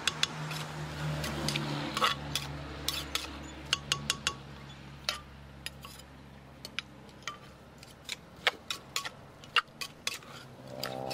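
Utensils knocking and clinking irregularly against a mortar as som tum is mixed and tossed, not pounded.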